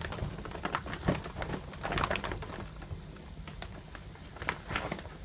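A cat's claws scrabbling on a hanging fabric shoe organizer as it climbs: a scattered run of soft scratches and rustles, with a few louder scrapes.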